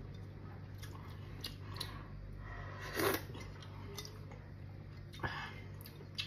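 A person chewing and smacking their lips while eating by hand, with soft scrapes of fingers against a ceramic plate and a few louder mouth smacks. A steady low hum runs underneath.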